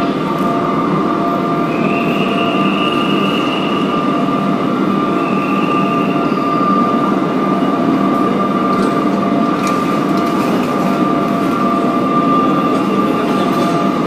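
Railway station hall ambience: the steady noise and whine of trains standing at the platforms, with two brief high squeals about two and five seconds in.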